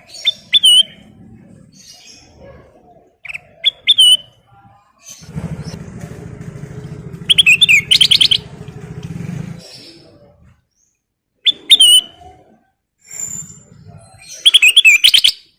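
Kutilang emas, a bulbul, singing in about five short bursts of loud, quick whistled chirps and trills. A low hum runs underneath from about five to nine and a half seconds in.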